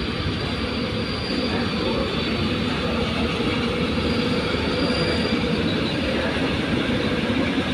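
Freight train hauled by an ET42 twin-section electric locomotive rolling past, its long string of open wagons making a steady rumble and clatter of steel wheels on the rails that grows slightly louder, with a faint high wheel squeal at times.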